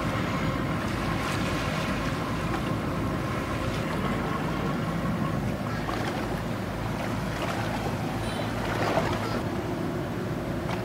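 Steady low rumble of boat engines running on the water, with the wash of water at the bows.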